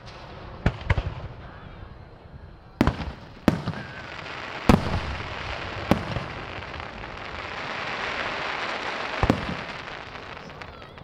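Aerial fireworks show: about seven sharp booms, two in quick succession about a second in, over a hiss that swells through the middle and fades near the end.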